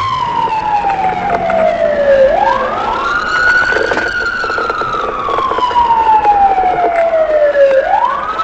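Police car sirens on wail: the pitch rises quickly, then slides slowly down over about five seconds and rises again near the end. Two sirens sweep slightly out of step about two seconds in. Engine and road noise run underneath.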